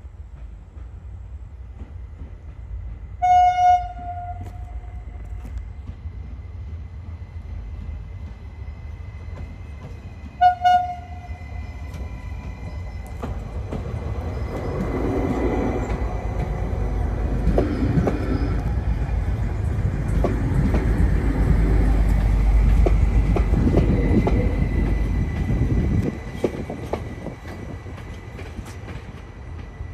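Elron Stadler FLIRT electric multiple unit sounds two short horn toots, the second briefer, then passes close by. The pass brings a rising rail rumble with wheel clicks and a steady high whine, loudest a few seconds before it drops away suddenly near the end.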